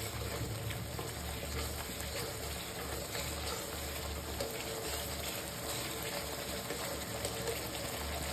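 Mustard spice paste sizzling and bubbling in hot oil in a metal kadhai over a high gas flame as it is stirred with a spatula, a steady crackle of fine ticks. This is the masala being fried down, its water cooking off.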